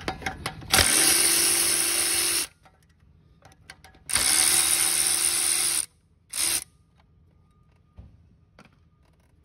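Milwaukee stubby cordless impact wrench run in two bursts of about a second and a half, then a short blip, loosening fasteners on the turbocharger's heat shield. There are light clicks of the tool against metal before it starts and a single knock near the end.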